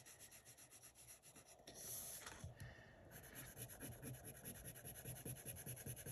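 Faint scratching of a wax crayon rubbed back and forth on drawing paper in quick, even strokes, with a brief louder rustle about two seconds in.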